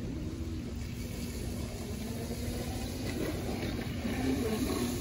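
Steady low rumble of wind and rain with a faint, wavering electric motor whine from a Segway Ninebot GoKart Pro electric go-kart sliding on wet pavement at a distance. The whine shifts in pitch a little near the end.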